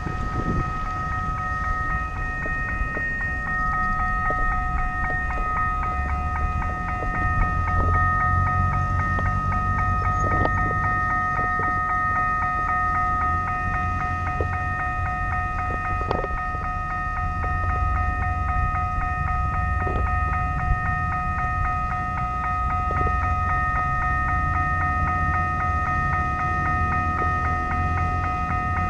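City street ambience heard from a bicycle-mounted action camera: a steady low rumble of traffic and movement under a constant high-pitched whine of several steady tones, with a few faint ticks.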